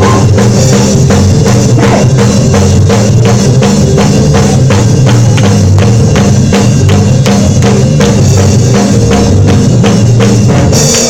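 Church praise-break music: a drum kit and tambourine playing a fast, steady beat over a moving bass line, loud throughout, with a cymbal crash near the end as the band stops.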